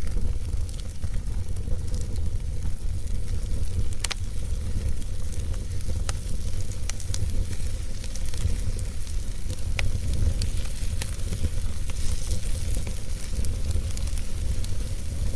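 Fire burning in a fireplace, crackling with scattered sharp pops over a steady low rumble and hiss.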